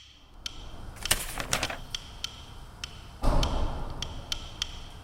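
Ticking, clock-like percussion in a background music bed, with a rushing whoosh about a second in and a heavy thud a little past the middle, the loudest sound.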